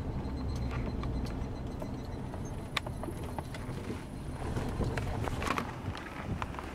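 Car moving slowly, heard from inside the cabin: a steady low rumble with scattered irregular clicks and knocks.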